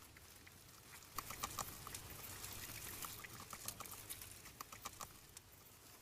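Young beavers gnawing on sticks: a faint, irregular run of small crunching clicks from about one to five seconds in.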